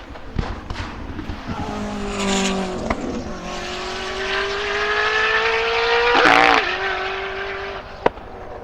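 Koenigsegg Jesko Attack's 5.0-litre flat-plane-crank twin-turbo V8 at high revs. A few sharp pops come in the first second, then the engine note climbs steadily as the car accelerates, peaks loudest about six seconds in, and drops to a lower steady note as the car goes by. There is a single sharp crack near the end.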